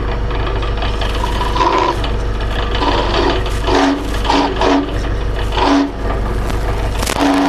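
Belt-driven drill press motor running steadily while a countersink bit chamfers holes in thin sheet steel. Several short bursts of chatter as the bit is fed into the metal, which the owner puts down to the drill running too fast for the bit.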